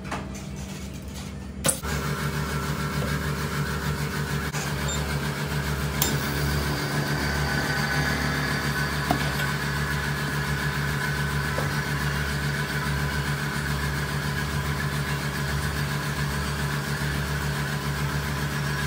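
Vacuum pump of a FORWARD vacuum laminating machine starting after a sharp click about two seconds in, then running with a loud, steady hum as it pulls the laminating chamber down to full vacuum.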